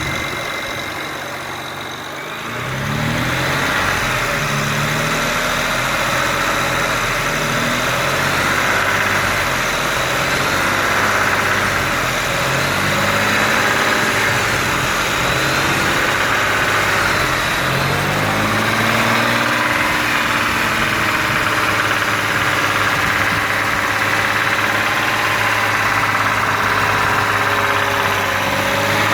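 BMW N54 twin-turbo inline-six engine running, its revs rising and falling again and again every few seconds. This is an engine with early rod knock, which its owner hears at about 3,000 rpm.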